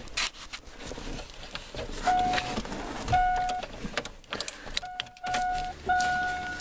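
A Chevrolet car's dashboard warning chime, a steady electronic tone sounding in short spells from about two seconds in and then longer, with clicks of the key and ignition being worked as the engine is about to be cranked after sitting all winter with a fresh battery.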